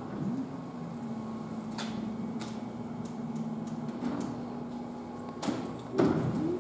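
Automatic sliding glass door of a small railway station waiting room, with a few clicks and knocks from its mechanism about five and a half to six seconds in, over a steady electrical hum in the room.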